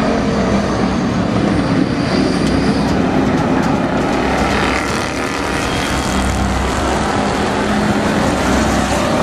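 A pack of dirt-track stock cars running together around the oval, their engines making a loud, steady drone.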